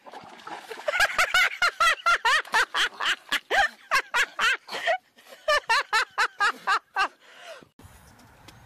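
A person laughing hard in rapid, high-pitched bursts, about three or four a second, for about six seconds before stopping.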